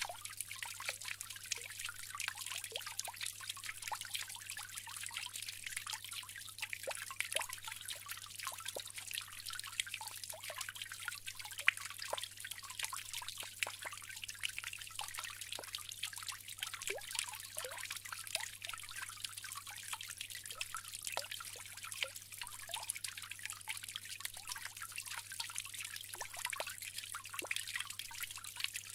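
Bamboo water fountain trickling steadily, with a constant patter of small drips.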